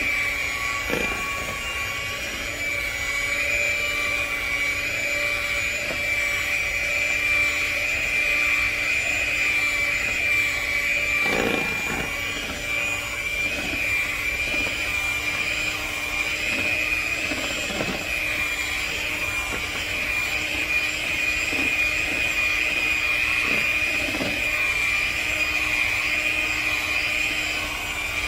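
Electric mixer running steadily with a high motor whine, whisking a cream cheese pie filling until smooth, with occasional soft knocks.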